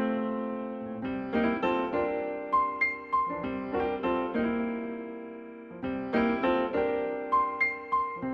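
Background music: electric piano playing a gentle melody, notes struck and left to decay.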